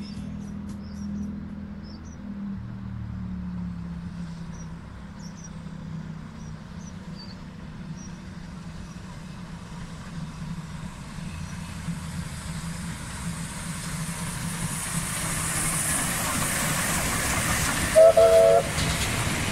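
Pair of South African Railways Class 19D steam locomotives working a train, the rumble and exhaust growing louder as they approach and pass close by. A short blast of the steam whistle sounds near the end.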